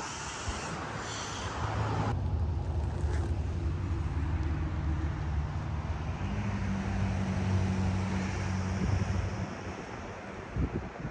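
A motor vehicle's engine running nearby, a steady low hum that steps up in pitch about six seconds in and fades out near the end, with wind on the microphone.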